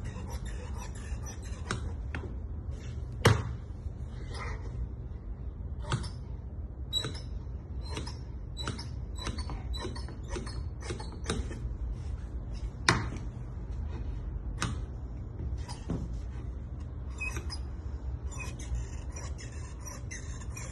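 Large tailor's shears cutting coat cloth on a wooden cutting table: a run of irregular snips and clicks from the blades, with two louder knocks, about three seconds in and again about ten seconds later, over a low steady hum.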